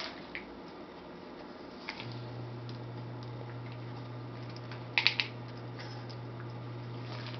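A few sharp clicks and taps in a small room, with a quick cluster of three about five seconds in. A steady low hum starts abruptly about two seconds in and keeps going.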